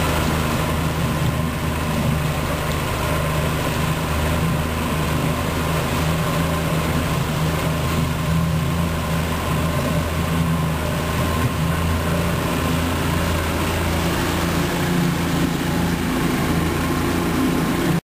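Mercury 20 hp outboard motor running at a steady cruising throttle, pushing a small boat along, its even hum held at one pitch over the rush of water and wind.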